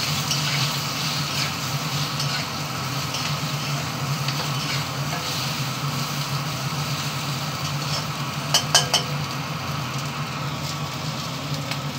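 Pointed gourd slices frying in mustard oil in a kadhai: a steady sizzle as a spatula stirs them, with a low steady hum underneath. A few sharp clicks of the spatula against the pan come about two-thirds of the way through.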